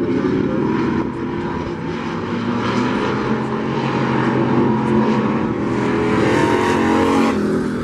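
Engines of several racing pickup trucks running hard together, their overlapping pitches rising and falling as they go round the track. The sound swells near the end, then drops off abruptly.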